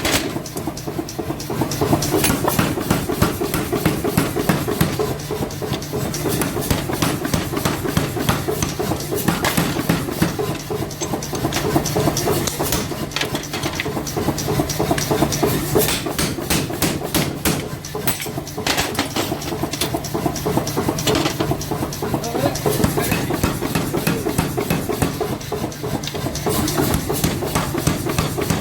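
Workshop machinery running with a steady hum under rapid, repeated hammer strikes on metal, the pounding of forging.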